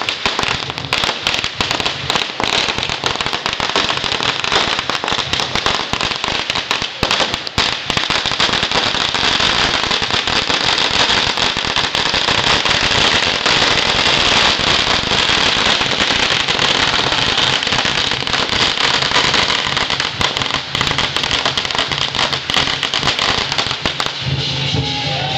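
A long string of firecrackers going off in a rapid, unbroken crackle of bangs, thinning out near the end.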